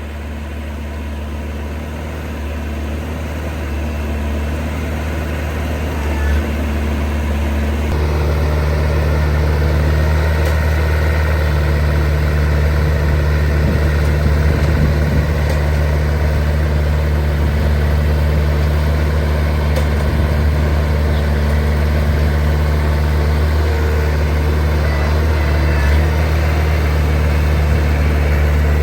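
Heavy construction machine's diesel engine running steadily, growing louder over the first several seconds, with a second engine note joining about eight seconds in.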